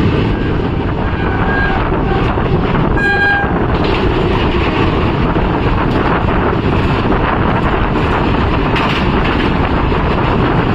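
Passenger express train running, the steady rumble and rattle of the coach heard from on board. A brief horn toot sounds about three seconds in.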